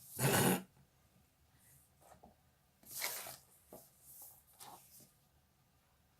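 Handling noise from photocards and album packaging: a short rustle right at the start, another about three seconds in, and a few soft taps after it.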